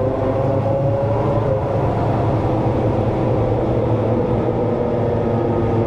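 Sport motorcycle with a straight-through 4-into-1 exhaust running steadily under way, a loud, even engine drone.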